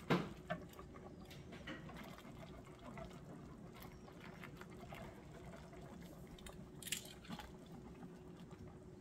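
Wire whisk stirring a thickening milk sauce in an enameled cast-iron skillet: faint liquid swishing, with a few light clicks of the whisk against the pan.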